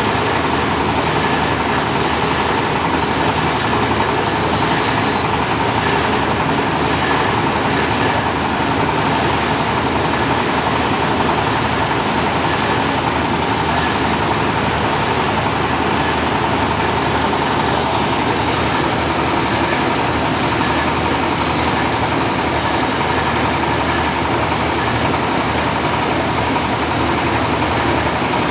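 Plastic packaging shredder machine running steadily, a loud even mechanical drone with a faint steady whine.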